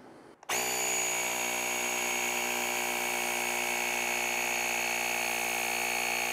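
Cordless electric air pump (tire-inflator type) running steadily, pumping air into a hand pump sprayer to build pressure toward its preset 18 PSI; the motor starts about half a second in and holds one even pitch.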